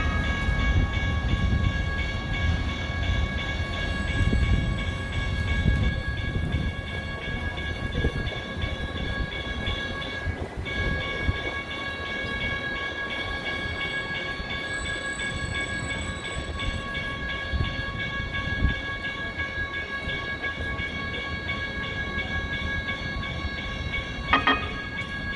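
NJ Transit Hudson-Bergen light rail car approaching and pulling into the platform with a low, uneven rumble. A steady high whine runs beneath it, and there is a short sharp sound near the end.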